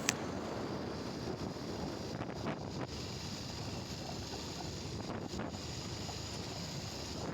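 Steady wind noise buffeting the microphone of a moving two-wheeler.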